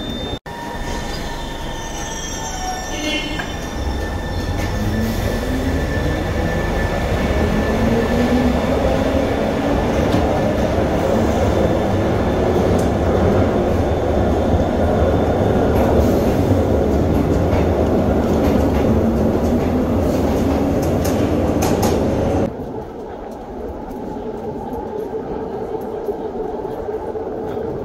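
Glasgow Subway train running at the platform: rumble and wheel noise with a motor whine that glides upward, growing louder through most of the stretch. Near the end it cuts off abruptly to a quieter steady platform rumble.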